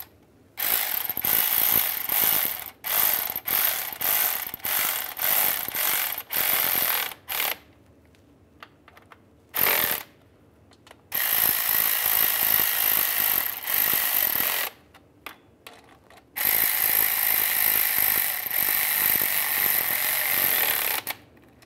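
Cordless electric ratchet running down the bolts of a transfer case shift motor. It starts with about ten short bursts, then a brief one, then two long runs of several seconds each.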